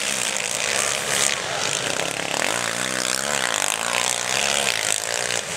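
Sidecarcross outfits' motocross engines revving on the track. The engine pitch rises and falls about halfway through, over the steady noise of the machines.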